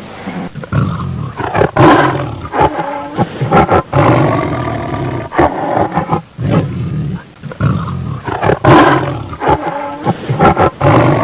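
A large animal calling loudly and repeatedly in rough, throaty bursts, roughly one a second.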